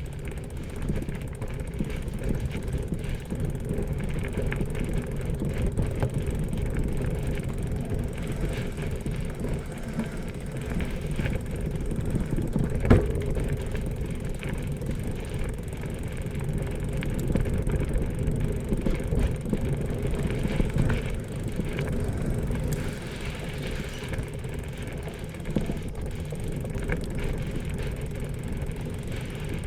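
Steady low rumble of a bicycle being ridden along a road, with one sharp knock about thirteen seconds in.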